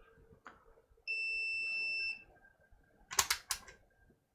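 Electronic bench-instrument beeper sounding one steady high beep of about a second, during a check of a laptop mainboard for a short circuit. About a second later comes a quick cluster of sharp clicks.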